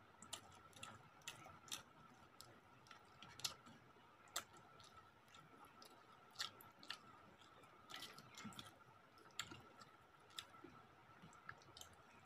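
Faint close-up eating sounds: chewing and wet mouth clicks and smacks as people eat rice and chicken curry by hand, with irregular sharp clicks scattered throughout.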